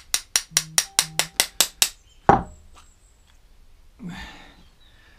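A quick, even run of about ten sharp metallic taps, about five a second, as a hand tool works at a small lawnmower carburettor. A single heavier knock follows a little after two seconds.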